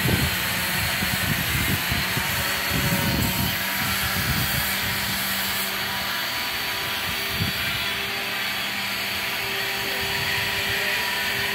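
Steady hissing drone of machinery at work on the hull in the dry dock, with a faint steady hum through it and low rumbling gusts in the first few seconds.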